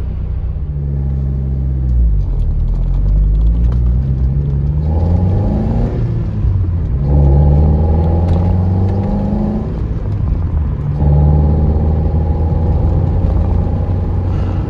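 MG TF's four-cylinder engine pulling through the gears. The note climbs, then drops at each of three gear changes before settling to a steady cruise. Its exhaust note is 'farty'.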